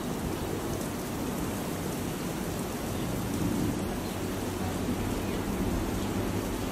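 Steady rush of wind and rain from a severe thunderstorm with a tornado bearing down, an even roar with no distinct claps or bangs.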